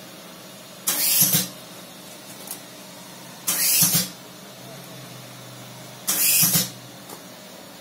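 Pneumatic chocolate spray machine firing its nozzles in three short, loud hissing bursts about two and a half seconds apart, each burst one spray cycle coating the inside of a paper ice cream cone with chocolate. A faint steady hum runs between the sprays.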